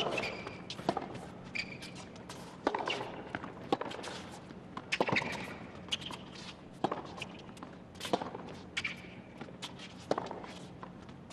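Tennis rally on a hard court: sharp pops of the ball struck by rackets and bouncing off the court, roughly one a second.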